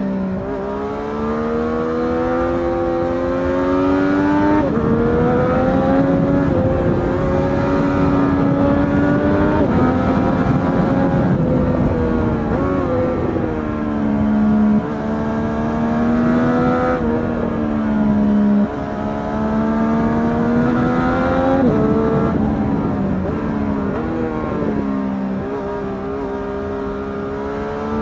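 A motorcycle engine being ridden hard through the gears. Its pitch climbs and falls over and over, with sudden jumps at the gear changes.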